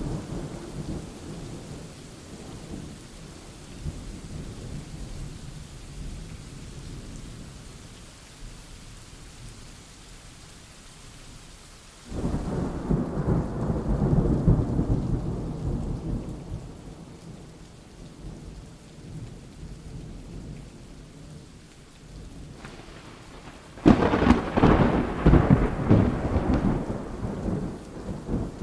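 Thunderstorm: steady rain with thunder. A low rumble starts suddenly about twelve seconds in and fades over several seconds. A louder, crackling thunderclap comes near the end.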